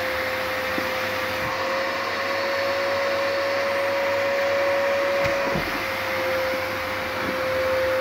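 Vacuum cleaner running with a steady high whine, its hose nozzle sucking a lace thong off a tile floor. The whine's pitch steps up slightly about two seconds in and drops back about five and a half seconds in.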